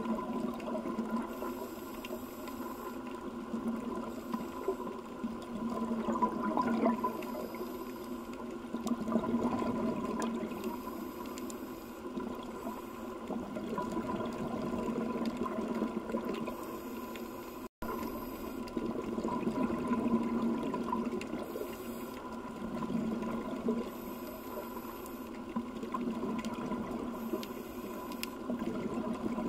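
Underwater ambience of scuba diving: divers' exhaled regulator bubbles and water movement, swelling and fading every few seconds over a steady low hum.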